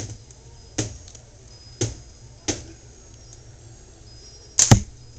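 Slingshot shots at a match: four sharp cracks about a second apart, then a louder quick double crack near the end.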